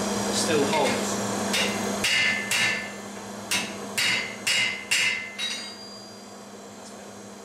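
Hammer blows on copper sheet over a steel anvil: a run of sharp metallic strikes about two a second, each with a short ring, stopping a little past halfway through.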